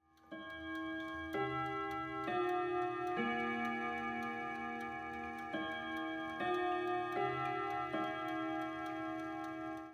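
Grandfather clock's tuned chime rods striking a slow melody, one ringing note about every second with a short pause midway, over the steady ticking of the clock's movement.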